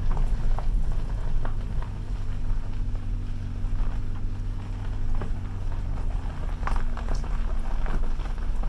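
Vehicle driving over a rough gravel road: a steady low engine and road rumble with scattered knocks and rattles from the bumps and gravel.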